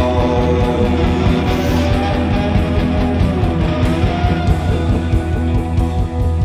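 Loud guitar-based rock music: sustained, layered guitar tones over a steady low drone.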